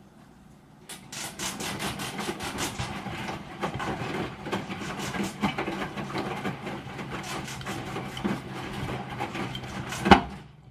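Broken washing machine running with a dense scraping, rubbing and clicking noise over a low motor hum, starting about a second in, with a sharp knock near the end.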